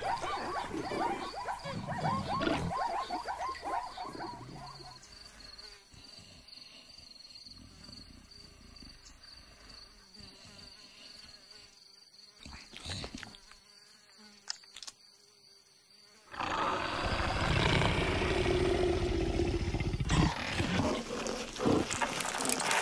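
Animated-film sound effects of a savanna. Animal noises fade over the first few seconds into a quiet stretch with a steady thin insect buzz and a few clicks. About two-thirds of the way in, a loud, rough big-cat growl comes from the round cartoon leopard and starts suddenly.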